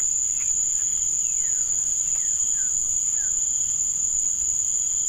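Steady high-pitched insect drone from the rice fields, unbroken, with a few faint short chirps that slide downward in pitch.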